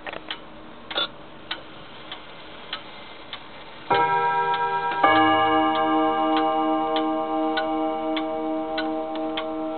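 Junghans wall clock ticking, then striking twice about a second apart. Each strike leaves a long, bright ringing tone that sounds over the ticking.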